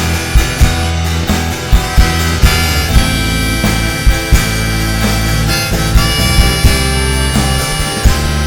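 Live rock band playing an instrumental passage, a harmonica carrying the lead over guitar, bass and drums.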